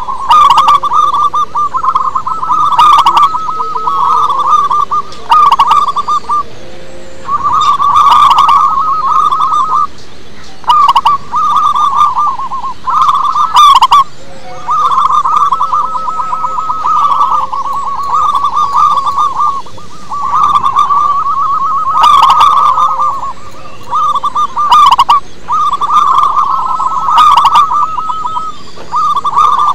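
Zebra dove (perkutut) singing its trilled cooing song over and over, in phrases of about one to two seconds with short pauses between them.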